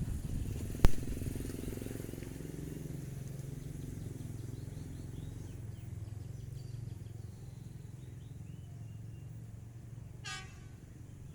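A long-distance passenger train running away into the distance, its low rumble and engine drone slowly fading. There is a sharp click about a second in and a brief high toot near the end.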